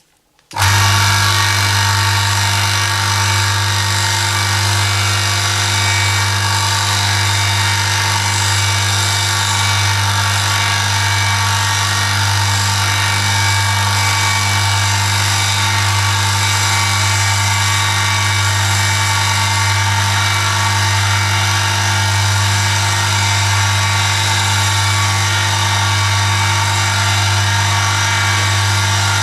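Motor-driven oil friction test rig switched on about half a second in and running steadily with a loud hum and whine: a metal test sample rubbing metal-on-metal under a 2 kg load in hot engine oil.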